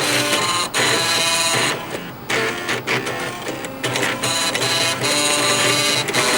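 Floppy disk drives playing a song melody, their stepper motors buzzing out rhythmic pitched notes in several voices at once. The sound briefly thins out about two seconds in.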